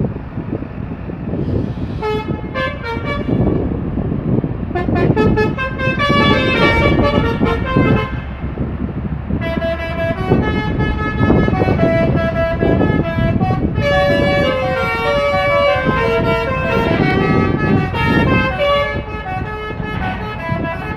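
Bus telolet horns playing quick multi-note melodies, starting about two seconds in, pausing briefly, then sounding almost continuously over a low rumble of bus engines.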